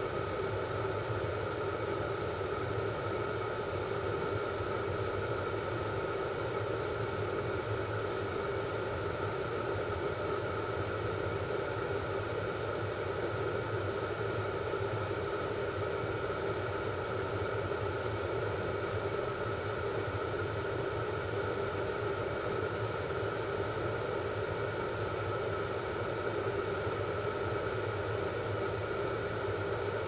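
Vevor portable diesel air heater running at full output: a steady blower fan and burner roar with a constant whine.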